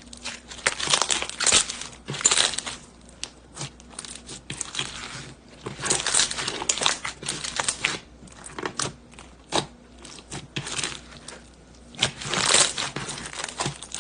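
Slime being squished and kneaded by hand, giving bursts of crackly clicks and pops, loudest around a second in, at about six seconds and near the end.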